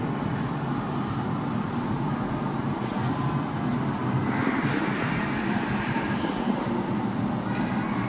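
A steady, low rumbling noise with no distinct events.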